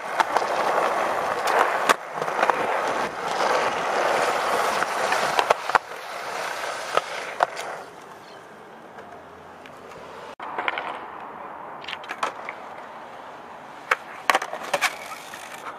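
Skateboard wheels rolling on concrete for the first several seconds. Then come sharp wooden clacks of the board popping and landing, several of them close together near the end.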